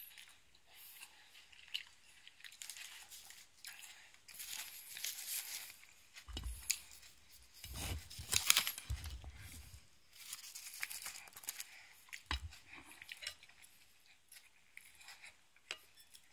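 Crisp rustling and crinkling close to the microphone in several bursts, with a few dull bumps, the loudest about eight to nine seconds in.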